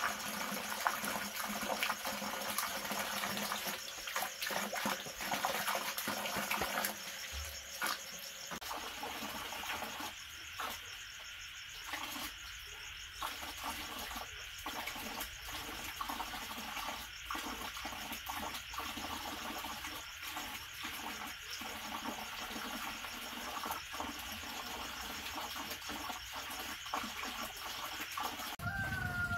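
Night insects, crickets among them, chirping steadily over a high hiss, with scattered faint clicks.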